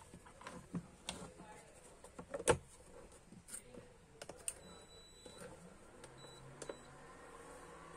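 Scattered faint clicks and knocks of hands handling an induction cooktop's plastic housing and buttons, one louder knock about two and a half seconds in. A faint, steady, high tone starts about halfway through.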